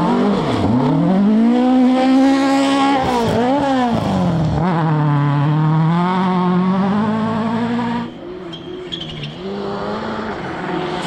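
Rally car engine at full throttle, revs rising and falling through gear changes, with a brief lift off the throttle about three seconds in. The sound drops suddenly about eight seconds in, leaving a quieter engine running on.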